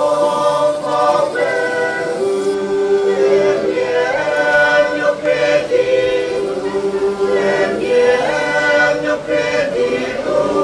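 Two women singing together unaccompanied, their voices holding long notes in two parts.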